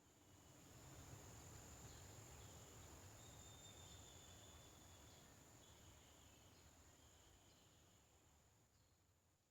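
Near silence: faint outdoor ambience with a thin, steady high insect buzz and faint broken high chirps, fading in and then out.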